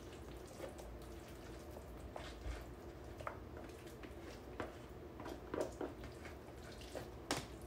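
Guacamole being spooned from one plastic container into another: faint, wet plops and the spoon scraping and tapping against the plastic, a handful of times, over a low steady hum.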